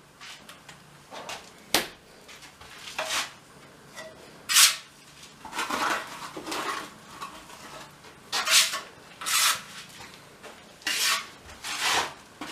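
Irregular clatter and scraping of hard objects being handled, like dishes or utensils: short sharp knocks and scrapes about once a second, with a busier stretch in the middle.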